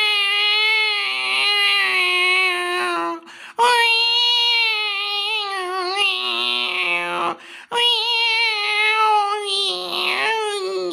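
A person imitating a cat's mournful crying: three long, wavering, drawn-out meows, performed as a depressed cat wailing.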